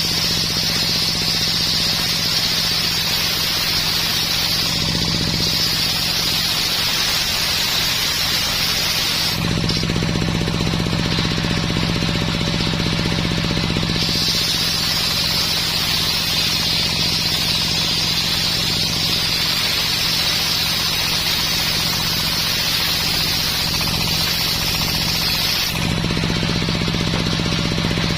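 Homemade circular sawmill running, its blade cutting through dense coconut-palm wood with a steady high hiss over the low hum of the drive. The cutting sound stops for about four seconds about a third of the way in, as between passes, then resumes until near the end.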